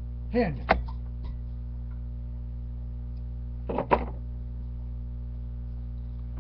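Steady electrical hum, with one short spoken word and a sharp click within the first second, and a pair of quick clicks about four seconds in.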